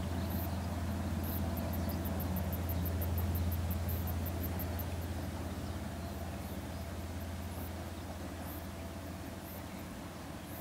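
Distant KiwiRail DL-class diesel-electric locomotive running as it hauls a milk train, a steady low rumble that swells about three seconds in and then slowly fades.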